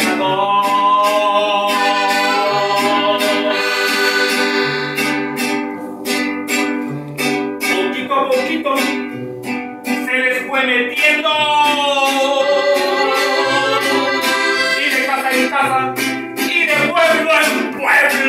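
A corrido played live on piano accordion and strummed acoustic guitar, with a steady two-note alternating bass, and a man's voice singing over it.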